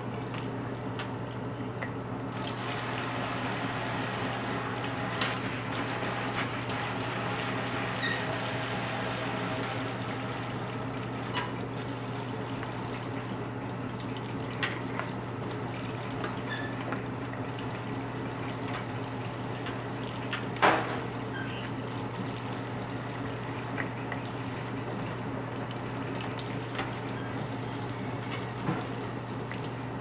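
Kitchen faucet's pull-out spray head running steadily, its spray of water falling onto a bathing macaw and into a stainless steel sink. A low hum sits underneath, and a few small clicks or knocks sound over the spray, the loudest about two-thirds of the way through.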